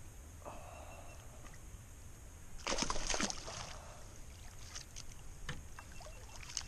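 Water splashing as a hooked gar is scooped into a landing net beside a kayak, with the loudest burst of splashes about three seconds in and a few smaller splashes after it.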